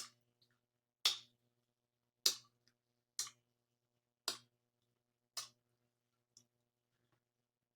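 Close-miked wet chewing of lobster tail, with sharp mouth clicks about once a second that fade out near the end.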